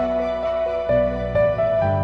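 Slow, soft instrumental background music with held notes; the bass and chords change about a second in and again near the end.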